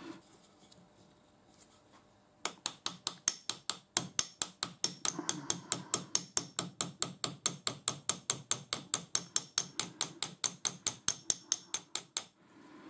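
Small hammer tapping a steel punch against the spindle of a lathe live centre, driving the bearing up to seat it. The light, even taps start about two and a half seconds in, run at about five a second, and stop shortly before the end.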